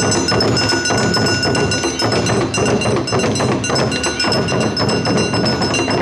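Awa-odori festival band (narimono) playing the dance music: drums and bright metal percussion striking the beat, with a few held high tones over it.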